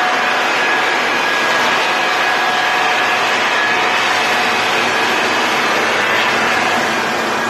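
Floor sander running steadily on a wood floor: a loud, even whir with a steady whine over it.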